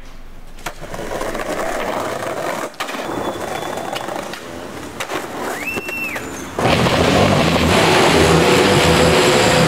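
Skateboard wheels rolling over paving, with a few sharp clacks of the board. About two-thirds of the way through, a much louder noisy sound with a low pulsing pattern cuts in suddenly.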